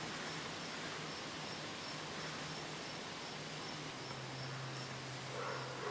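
Outdoor ambience: a steady hiss with an insect chirping faintly in short pulses about twice a second, over a low steady hum that drops in pitch about four seconds in. A brief, slightly louder sound comes near the end.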